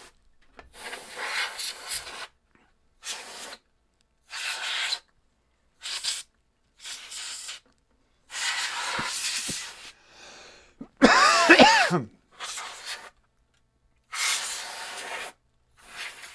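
Repeated short bursts of blown air hissing into the dusty floppy drive to clear out dust, a dozen or so puffs with pauses between. About eleven seconds in comes a louder, brief squeal that wavers up and down in pitch.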